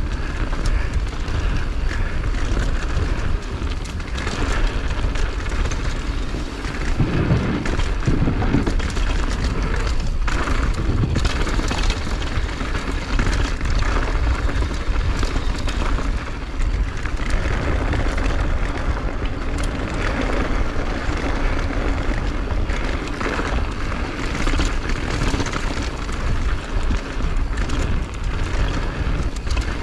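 Steady wind rumble buffeting the microphone, over the hiss and scrape of skis sliding on snow during a downhill run.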